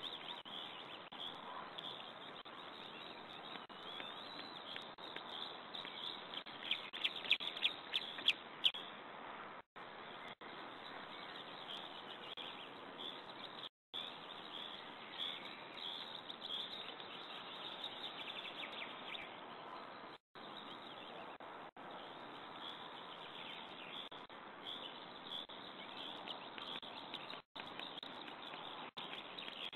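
Woodland ambience on a nest-camera microphone: a steady hiss with small birds chirping and singing, and a quick run of sharp, high chirps about seven to nine seconds in. The sound cuts out for a moment several times.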